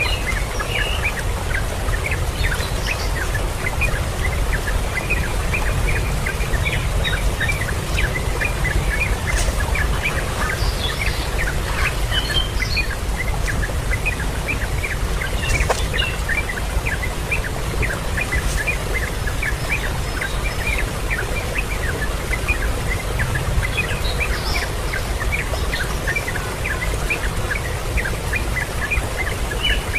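Many birds chirping in a dense, continuous stream of short, high calls, with an occasional higher call standing out, over a steady low rumble.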